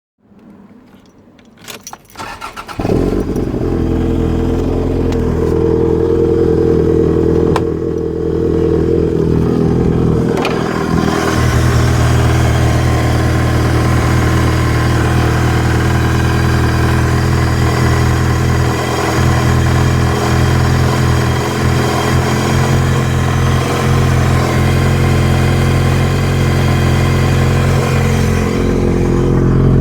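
Engine cranked and catching about three seconds in, then running steadily, with a brief change in its note around ten seconds in. The owner suspects the engine is misfiring, possibly from a fueling issue.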